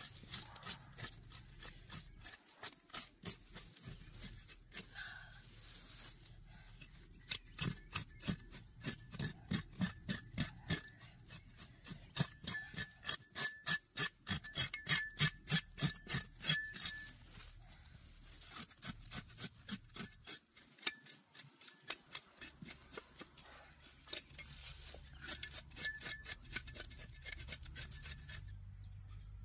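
Knife blade scraping and cutting across crocodile hide in quick repeated strokes, a few a second, in several runs with short pauses between them.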